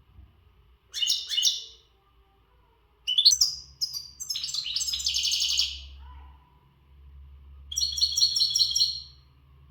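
Male European goldfinch singing strong, fast twittering song in three bursts with short pauses between, the song of a bird in breeding condition.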